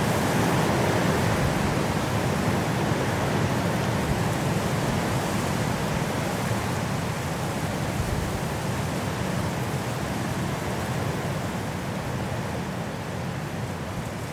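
High wind blowing through forest trees in a snowstorm: a steady rushing that is strongest near the start and eases off slowly.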